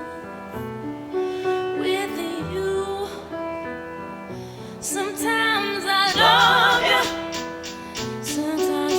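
Music: a slow song with a woman singing, her voice wavering on long held notes over sustained bass and keyboard chords. A crisp ticking beat comes in near the end.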